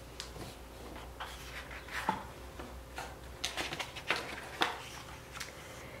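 Pages of a hardcover picture book being turned by hand: quiet paper rustles and several light flicks and taps.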